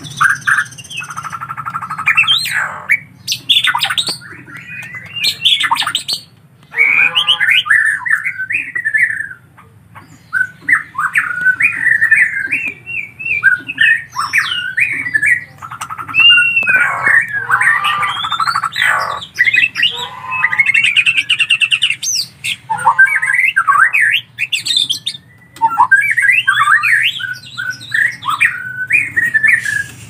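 White-rumped shama singing: a long run of varied phrases of clear whistles, pitch glides and harsher notes, broken by short pauses.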